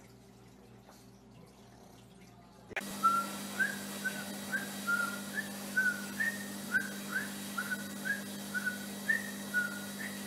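Pug whining in a string of short, high, whistle-like notes, about two a second, over a steady low hum. They start about three seconds in, after a quiet stretch.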